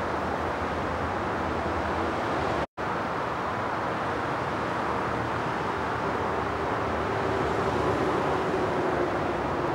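Steady outdoor background noise, a even hum and hiss with no bird calls, cut by a brief dropout to silence about three seconds in. A faint steady hum joins in after about six seconds.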